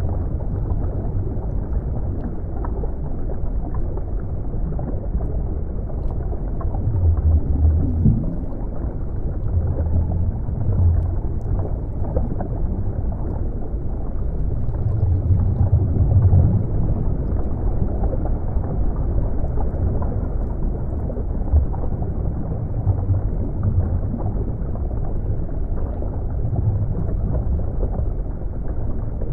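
Underwater ambience: a low, muffled rumble of moving water, steady with a few slow swells in loudness.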